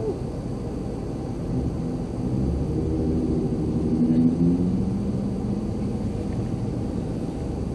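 Steady low rumble of motor vehicles at a roadside stop. A nearby vehicle's engine hum swells about two and a half seconds in, then slowly fades away.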